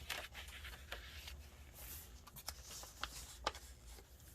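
Paper pages, pockets and tags of a handmade journal rustling faintly as they are handled and turned, with several short sharp clicks and taps.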